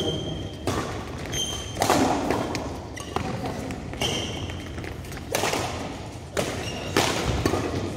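Badminton rackets hitting a shuttlecock in a rally: sharp strikes roughly a second apart, each echoing in the large hall, with short high squeaks between some of the hits.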